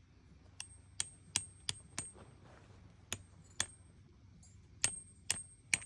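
Hammer driving a metal tent stake into the ground: about ten sharp strikes, each with a high metallic ring, in quick runs with short pauses between.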